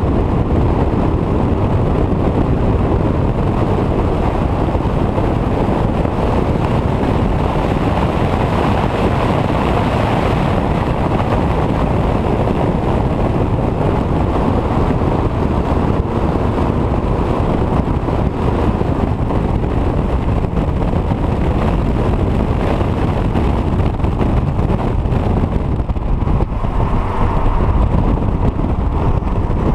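Wind buffeting the microphone of a camera mounted outside a 2015 VW GTI at track speed, with the car's engine and tyre noise underneath. The noise is steady, loud and heavy in the low end.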